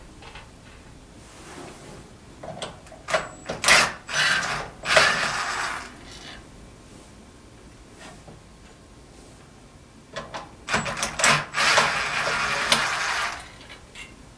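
Handling noise from taking apart the TV: screws, springs and a screwdriver clicking and scraping against the metal chassis and heat sink, in two bursts of several seconds each, with quieter stretches between.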